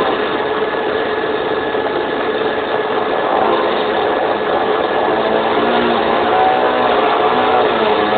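Small petrol engine, the kind on a chainsaw or lawnmower, running steadily with its pitch wavering slightly. It is an old, dull-sounding recording with no high end.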